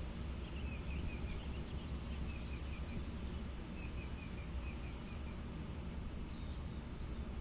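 Hitachi excavator's diesel engine running with a steady low rumble. A bird calls over it in three runs of quick, short chirps, each run lasting about a second.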